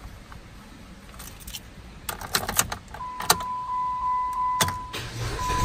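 Car keys jangling and clicking as the ignition key goes in, then a steady high electronic warning tone from the Jeep Patriot's dash. Near the end the engine begins to crank, running off a portable jump starter because the battery is too weak to start it.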